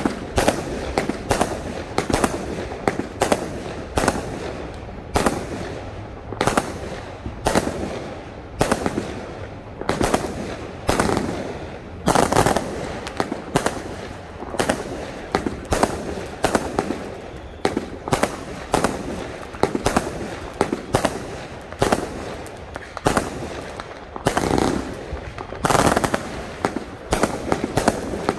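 A 100-shot, 500 g firework cake fires shot after shot: a rapid, unbroken series of sharp bangs from the aerial breaks, about one or two a second.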